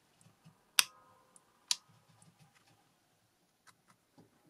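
Two sharp clacks about a second apart, followed by a few lighter clicks and taps, as a plastic craft hole punch is lifted, moved and set down on a cutting mat.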